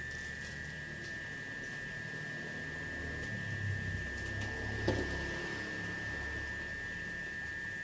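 Steady high-pitched electrical whine over a low hum, with faint handling noise in the middle and a single sharp click about five seconds in.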